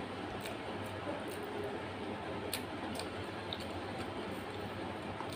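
Eating by hand: a few scattered wet clicks and smacks from fingers working rice and curry and from chewing, over a steady background hiss and low hum.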